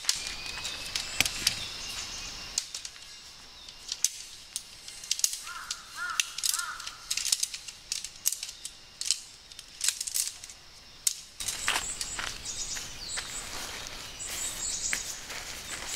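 Tent poles clicking and clacking as they are drawn out of an MSR Storm King tent during strike-down. After about eleven seconds the tent fabric rustles as it is rolled up, with high bird chirps over it.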